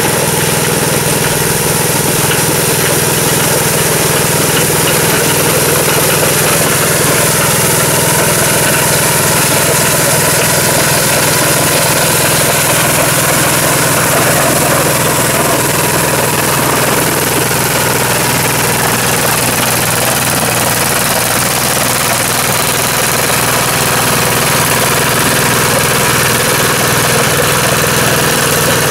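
Engine of the Gravely walk-behind tractor that powers a homemade motor grader, running loud and steady at constant speed.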